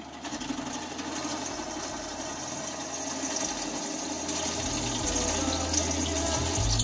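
A bench drill press spins a conical grinding stone against the edge of a hole in a flat steel bar. It gives a continuous grinding whir that grows louder as the jagged, unevenly drilled rim is ground smooth.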